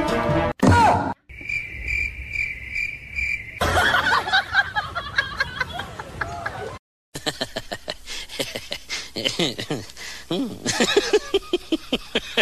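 A cricket chirping in a steady pulse, about five chirps a second, for about two seconds. It is followed by gliding voices or animal calls and, after a brief silence, a quick run of clicks with voices.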